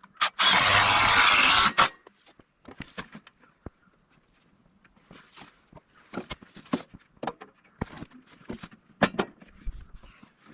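A loud burst of noise about a second and a half long near the start, cut off sharply. It is followed by scattered knocks, clicks and scrapes of hands working with the breaker box and its fittings.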